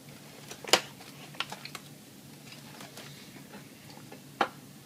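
Aluminium foil crinkling as a foil packet is pulled open by hand, with scattered sharp crackles, the loudest about a second in and another near the end.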